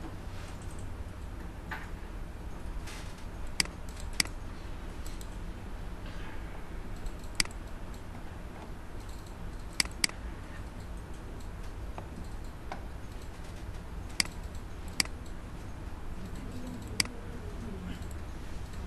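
Computer mouse clicking: sharp single clicks every second or so, with a quick double click near the middle, over a steady low hum.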